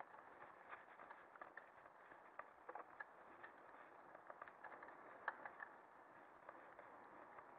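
Lapierre mountain bike rolling over a bumpy grass track: a steady hiss from tyres and air, with an irregular run of small clicks and knocks as the bike rattles over the bumps. The sharpest knock comes about five seconds in.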